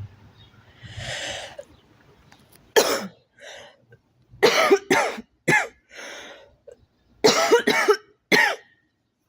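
A girl coughing in fits: one harsh cough about three seconds in, then two quick runs of three coughs, with breaths drawn in between.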